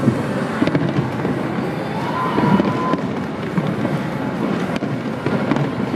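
Fireworks shells bursting over the harbour, with sharp bangs every second or so over the steady murmur of a large crowd.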